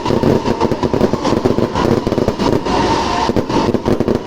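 Fireworks going off in a loud, rapid, unbroken string of bangs and crackles.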